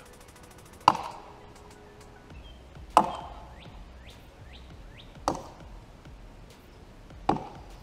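Axe chopping into the trunk of a large standing tree: four sharp strikes about two seconds apart, each with a short echo.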